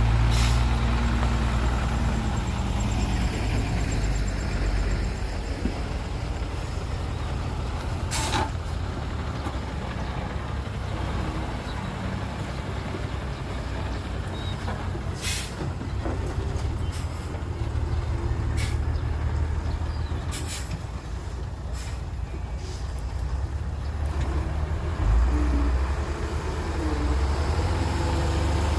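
Heavy diesel trucks and earthmoving machinery running with a steady low rumble, broken by about a dozen short, sharp bursts of noise spread across the clip.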